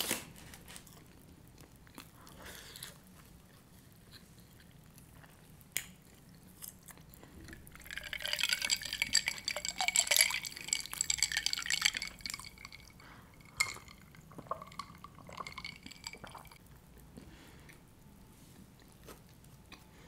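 Close-miked chewing of food: scattered soft clicks, with a denser, louder crackling stretch of a few seconds in the middle. There is a sharp click right at the start.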